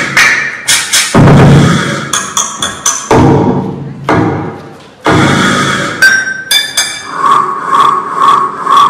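Dance-routine music mix: heavy booming hits with sweeping high effects, then from about seven seconds in a steady ticking beat, about two ticks a second.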